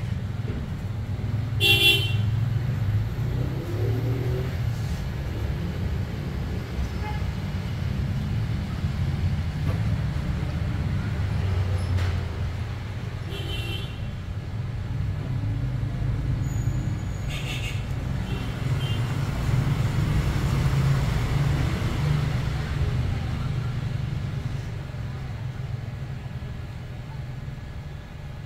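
Road traffic rumbling steadily, with three short vehicle horn toots: one about two seconds in, two more past the middle.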